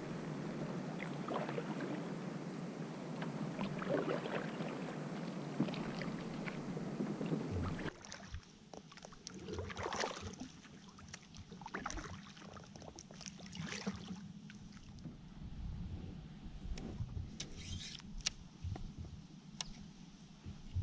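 Kayak paddle strokes splashing and dripping in shallow water, with a steady rush of water for the first third, then quieter, separate strokes.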